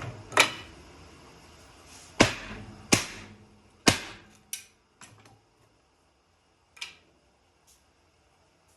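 A series of sharp knocks and clacks, about six spaced irregularly over the first five seconds and one fainter one near seven seconds, from objects being handled and set down.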